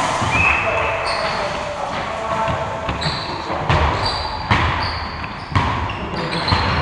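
Basketball game in play: the ball bouncing on the court floor in a series of sharp knocks, with short high sneaker squeaks, echoing in a large hall.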